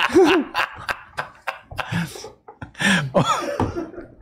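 Men chuckling and laughing in short breathy bursts, with a couple of brief voiced sounds.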